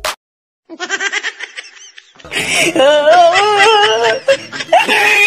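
Laughter: a quick run of short pulses about a second in, then from about two seconds in a longer, louder laugh whose pitch wavers up and down.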